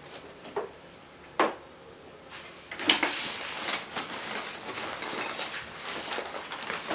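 Handling noises: two sharp knocks in the first second and a half, then from about three seconds in a continuous rustling with small clicks and clatter.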